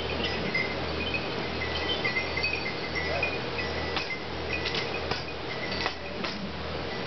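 Hall room tone between songs: light clinks and a few sharp taps over a steady low hum.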